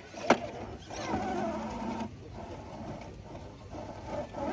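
Electric motor and gearbox of a 1.9-scale RC rock crawler whining unevenly as it crawls over the course, with a sharp click or knock about a third of a second in.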